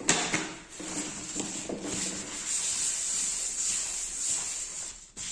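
A paper towel rubbed and rustled against a desk top in a continuous scratchy wiping, starting with a sharp loud rustle.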